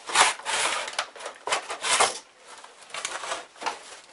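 Cardboard box and clear plastic packaging tray rubbing and scraping as the lap timer unit is slid out by hand. There are two louder scrapes in the first two seconds, then lighter rustling.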